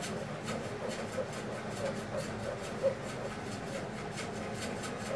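Steel spoon scraping and pressing tomato purée through a metal mesh sieve in a steady rhythm of repeated strokes, straining out the seeds.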